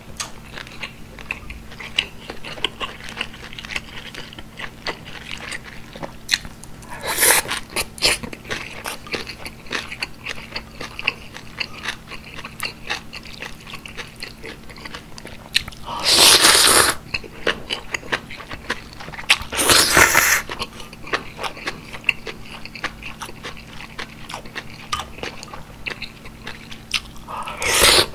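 Close-miked eating of beef and pork rice soup with bean sprouts: steady wet chewing and crunching. Four loud slurps, each about a second long, come about seven seconds in, twice around sixteen and twenty seconds, and once at the very end.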